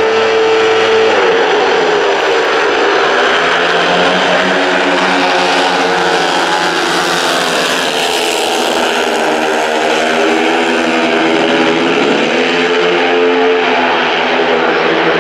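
Several speedway motorcycles racing, their 500cc single-cylinder methanol engines running at high revs with pitches rising and falling through the corners. The sound swells as the pack passes close, about halfway through.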